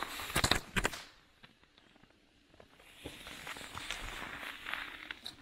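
A quick cluster of sharp firework pops and cracks in the first second, then footsteps crunching in snow from about three seconds in.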